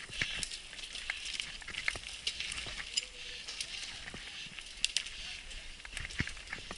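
Mountain bike rolling over a rocky trail: scattered clicks and knocks as the tyres and frame rattle over loose stones, over a steady hiss.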